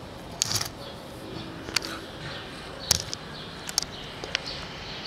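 A cat shifting and rolling on rough concrete right beside the microphone: scattered short clicks and scratches, irregularly spaced, over a steady outdoor background noise.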